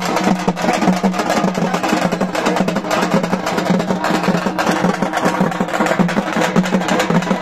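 Music with fast, continuous drumming over a steady low tone.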